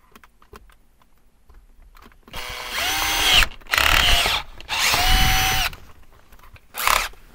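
Cordless drill boring out a pilot hole in the LR4's center console panel with a 3/8-inch bit. About two seconds in it runs in three short bursts of about a second each, the motor whine rising to speed and dropping off each time, with one brief blip near the end.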